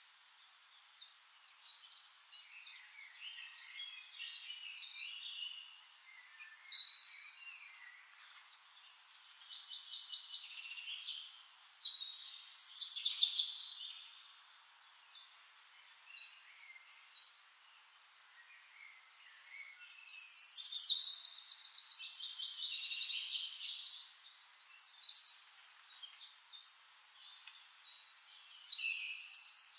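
Songbirds singing: a mix of short chirps, sliding whistles and rapid trills. The calls come in bouts, with louder, busier song about twelve seconds in and again from about twenty seconds, and a quieter lull in between.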